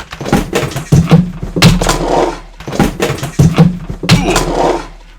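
A run of loud, hard thumps and knocks in quick clusters, with a low hum under them.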